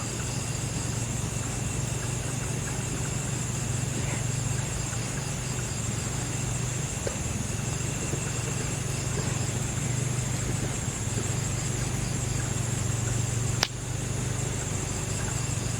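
Steady, low engine hum of a motor running at idle, which those present take for a motorbike though they are unsure what it is. A single sharp click about three-quarters of the way through.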